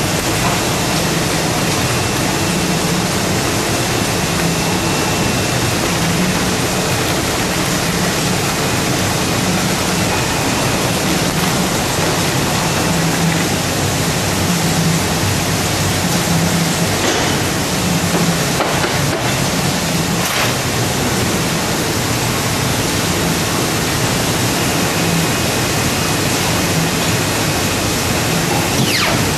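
Paper-cutting line running: a loud, steady machine noise with a faint hum that comes and goes, and a few faint knocks about two-thirds of the way through.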